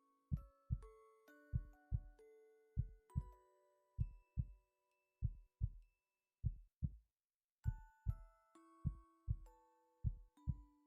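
A person's heartbeat, steady lub-dub double thumps repeating about once a second, over soft background music of sustained chiming notes that pauses briefly about midway.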